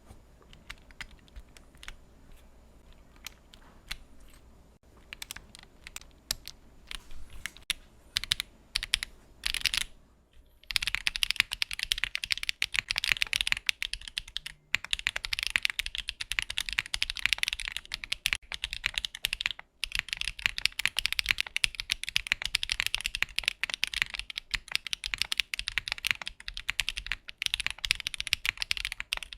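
Mechanical keyboard fitted with Akko V3 Cream Blue Pro clacky tactile switches being typed on: scattered single keystrokes for about the first ten seconds, then fast continuous typing.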